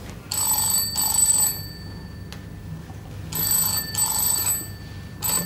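Landline telephone bell ringing: two rings starting about three seconds apart, then a short ring near the end.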